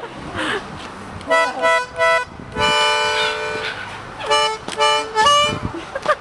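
A reedy wind instrument playing chords in short blasts: three quick notes, then a long held chord, then a run of about four short notes.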